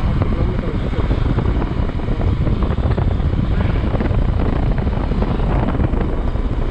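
Hero XPulse 200's single-cylinder engine running steadily as the motorcycle is ridden, with wind buffeting the microphone in a choppy low rumble.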